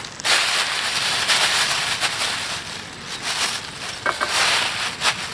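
Plastic bag crinkling and rustling in irregular bouts as it is handled.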